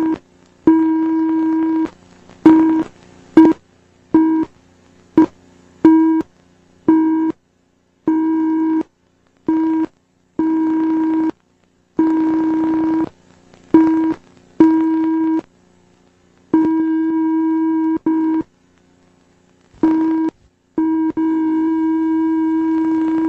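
A steady electronic buzzing tone that cuts in and out irregularly, about seventeen bursts from brief blips to a couple of seconds long, each starting with a sharp click; near the end it holds on without a break.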